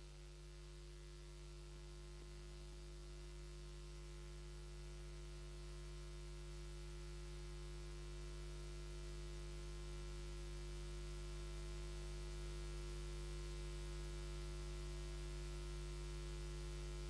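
Faint, steady electrical mains hum with a constant hiss, slowly growing a little louder.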